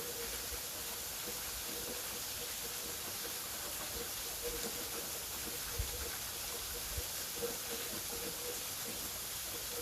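Waterfall rushing in a steady, even hiss, with a couple of soft low thumps a little past the middle.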